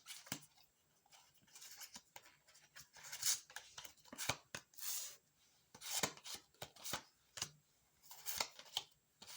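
Tarot cards being handled: faint, irregular slides, flicks and soft taps as the cards are shuffled and drawn.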